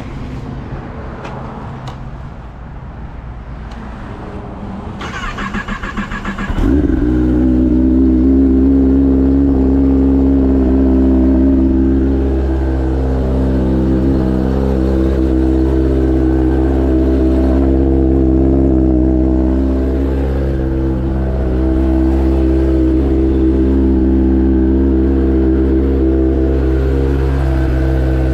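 Kawasaki ZX-10R inline-four with an Austin Racing exhaust being started: after a few seconds of low rumble, the starter whines for about a second and a half, the engine catches about seven seconds in, and it settles into a steady idle.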